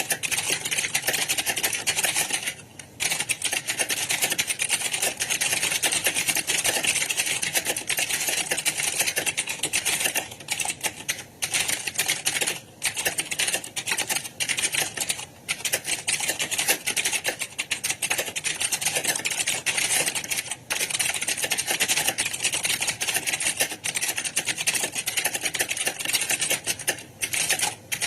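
Fast, continuous computer keyboard typing, a dense run of key clicks broken by a few brief pauses.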